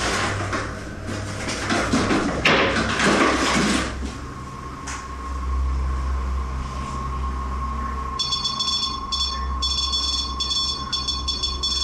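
A loud smashing noise lasting about four seconds. Then a REM pod, a ghost-hunting electromagnetic field detector, sets off its alarm: a steady electronic tone, joined about eight seconds in by high beeping that cuts in and out unevenly.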